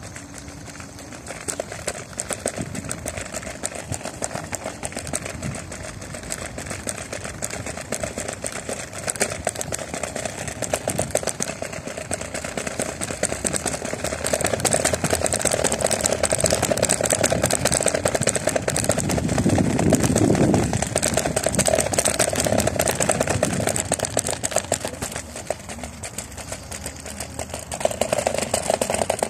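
Electric scooter riding over an asphalt path: a steady electric hum with continuous rattling from the scooter over the surface, louder through the middle as it picks up speed. A low rush about twenty seconds in.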